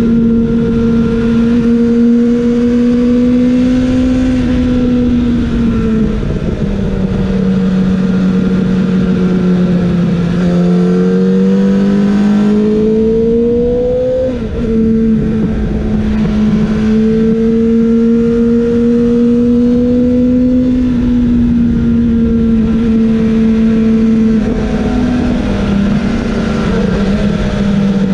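Kawasaki ZX-7R's inline-four engine running hard at high revs, with wind rush over the rider's-eye microphone. The engine note holds steady, sags and climbs again in the middle, and steps down briefly with a short dip in level about halfway through.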